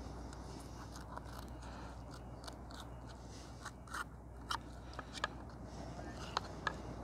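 Knife filleting a pejerrey (silverside) on a small cutting board: soft scraping and crunching as the blade cuts through the fish, with sharp clicks of the blade against the board coming more often in the second half, over a steady low rumble.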